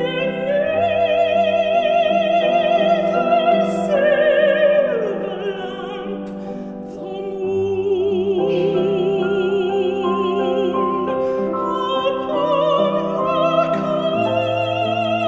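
Countertenor singing an art song in a classical operatic style, with a wide vibrato on several long held notes, over piano accompaniment.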